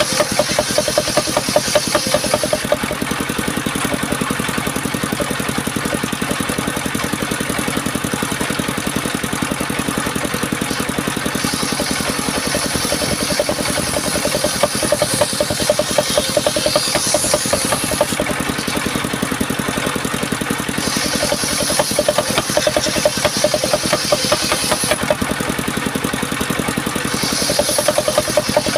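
Engine-driven homemade circular saw running steadily with a fast engine pulse. A higher hissing whine comes in for a few seconds at a time, four times: near the start, about 12 to 18 seconds in, about 21 to 25 seconds in, and again near the end.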